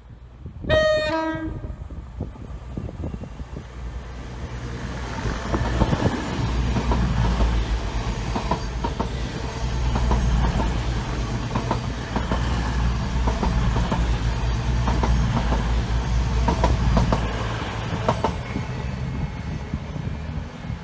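CrossCountry Voyager diesel multiple unit sounding a two-tone horn about a second in, high note then low, then running past. Its underfloor diesel engines and the wheels on the rail joints build to a loud, steady rumble and clickety-clack that eases slightly near the end.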